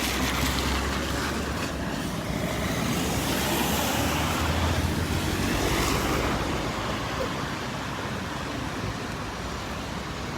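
Road traffic noise on a rainy street, swelling as a vehicle passes between about two and six seconds in.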